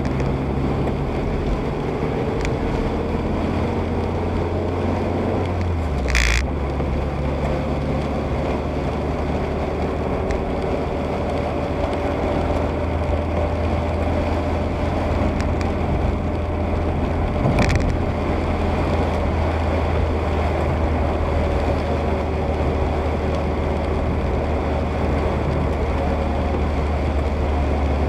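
Steady engine hum and tyre noise of a car driving on a wet road, heard inside the car's cabin. The low engine note shifts briefly about six seconds in, and there are two short clicks, one near six seconds and one near eighteen.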